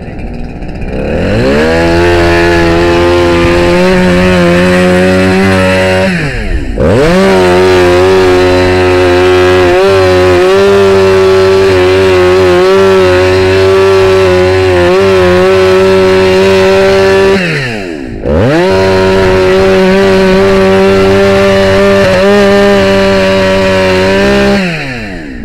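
Gas-powered rescue saw cutting through a metal garage door for forced entry. It runs at full throttle in three long cuts, dropping briefly twice between them, and winds down near the end.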